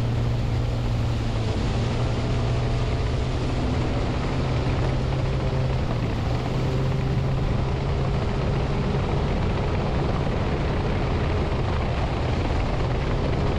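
Outboard motor of a small aluminium fishing boat running steadily at speed, a constant drone mixed with the rush of wind and water.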